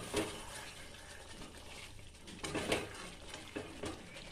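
A spatula stirring chicken pieces in thick curry gravy in a metal kadai, with short scrapes and squelches against the pan at the start, about two and a half seconds in, and again near the end.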